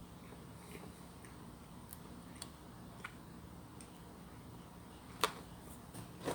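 Faint scattered clicks and ticks of eating at the table, with a sharper click about five seconds in, over a low room hum.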